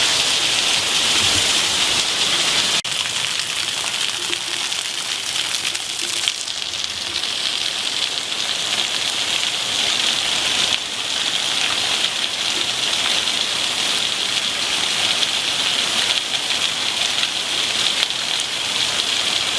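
Heavy rain pouring down in a steady, dense hiss, with small shifts in level a few times.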